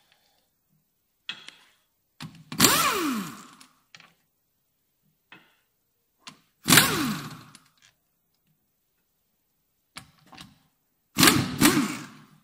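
Cordless impact wrench spinning out a car's wheel bolts: three bursts of about a second each, each winding down in pitch as the trigger is let go, with faint clicks between them.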